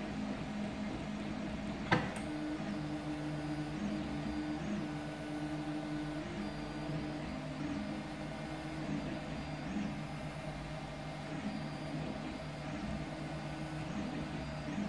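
Home-built CoreXY 3D printer running a print: the stepper motors whine in tones that shift up and down as the print head changes moves, over a steady fan hum. One sharp click about two seconds in.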